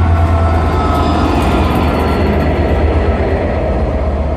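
Class 67 diesel locomotive pulling its passenger train out of the station: a steady, loud low engine drone with the rumble of the train moving past.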